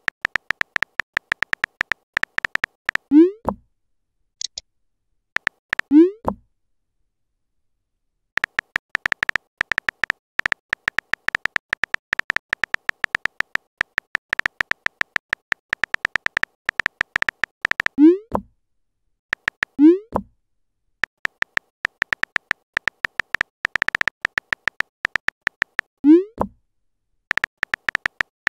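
Rapid clicking of a texting app's simulated phone keyboard as messages are typed, in runs several seconds long. Each run is broken by a short rising "bloop" of the message-sent chime, five times.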